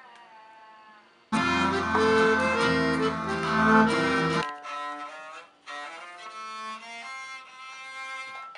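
Accordion playing loud sustained chords with a strong bass, cut off abruptly a few seconds in, followed by a bowed string instrument playing slow, separate held notes.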